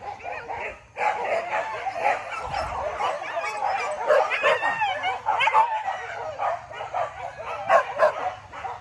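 A pack of hunting dogs barking and yelping over one another without a break, mixed with high gliding yelps and whimpers. There is a brief lull just before a second in.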